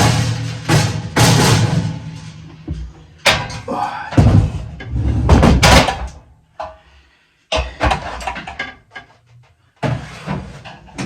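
Loud knocking and clattering of hard objects being handled, in several bursts separated by short quiet gaps.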